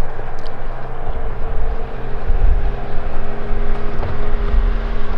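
A steady engine drone with a low, even hum that holds pitch throughout, under heavy wind rumble on the microphone.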